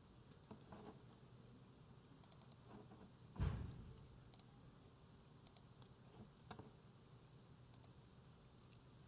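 Faint, scattered computer mouse and keyboard clicks, with one dull thump about three and a half seconds in.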